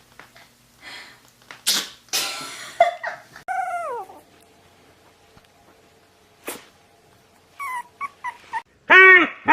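Puppy whimpering and yipping. About two seconds in come two short breathy bursts, then a falling whine, a few short high yips near the end, and a loud high whine at the very end.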